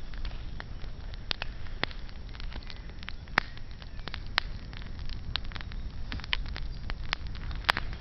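Long grass crackling and rustling as it is pushed through and trodden, with irregular sharp crackles, a few of them much louder, over a steady low rumble.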